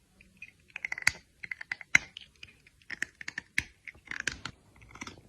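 Rapid, irregular clicking and tapping in quick clusters, with one sharper click about two seconds in.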